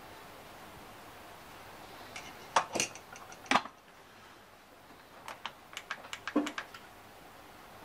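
Sharp clicks as the stainless-steel electric kettle's lid is snapped shut, then a quick run of small clicks from the temperature-selector buttons on the kettle's handle being pressed, about two-thirds of the way in.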